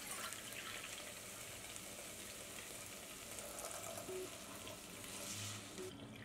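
Water poured from a stainless steel measuring cup into a hot pot of sautéed oats and vegetables, and the cup refilled with a stream of water, over a faint, steady sizzle from the pan.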